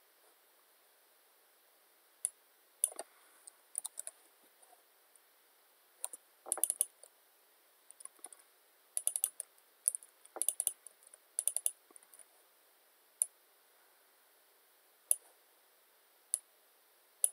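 Computer keyboard keys being typed in short, irregular bursts of clicks with pauses between.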